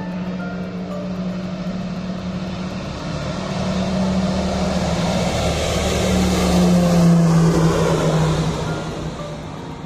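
Small propeller airplane's engines passing close during a landing or take-off. The sound swells to a peak about seven seconds in, the engine tone drops slightly in pitch as it goes by, and it then fades away.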